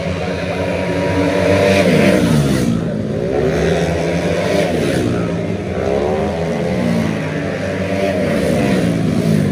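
Several racing automatic scooters with tuned 130cc engines at high revs, their overlapping engine notes sweeping up and down in pitch as the riders accelerate and come past.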